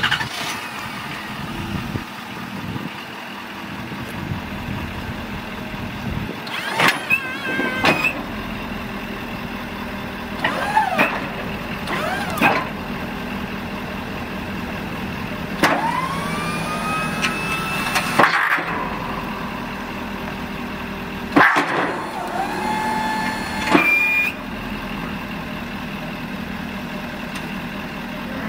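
Snowplow hydraulic pump whining in several short runs over the Ford F-550's engine idling steadily. Each run is a whine that rises in pitch, the longest lasting two or three seconds, as the Fisher XLS blade is raised, lowered and angled.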